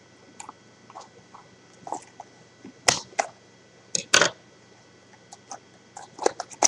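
Scissors cutting and prying open a small card box of trading card packs: scattered scratchy scrapes and clicks, with a few louder sharp cracks about three to four seconds in and another cluster of clicks near the end.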